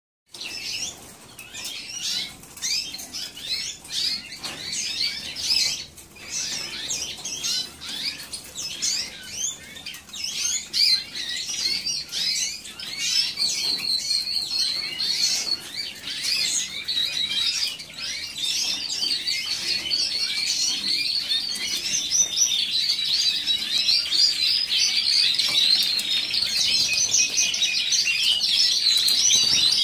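A room of caged canaries chirping, the scattered chirps building into continuous high trilling song that grows louder in the second half.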